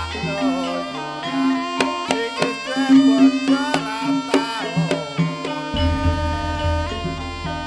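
Banyumasan ebeg gamelan music: a wavering, ornamented melody line over sharp hand-drum strokes and sustained low tones that grow heavier about six seconds in.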